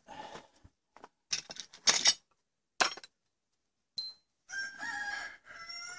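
Sharp metallic clinks and rattles as parts are handled at a front brake caliper, with a single high metallic ping about four seconds in. A rooster crows in the background through the last second and a half.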